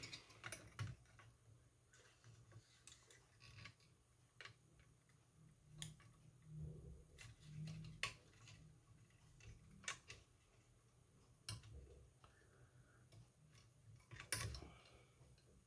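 Faint, irregular clicks and taps of plastic scale-model parts being handled and fitted together by hand.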